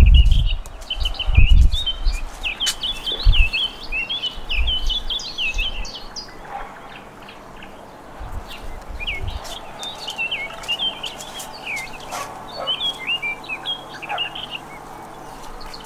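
Small songbirds twittering in quick, high chirping phrases, in two spells with a lull in the middle. Low thumps sound during the first few seconds.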